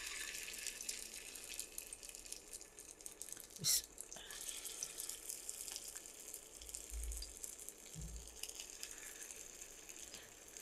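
Potato kababs sizzling faintly as they shallow-fry in a little hot oil in a nonstick pan, with a short knock a little over a third of the way in as another kabab is set down in the pan.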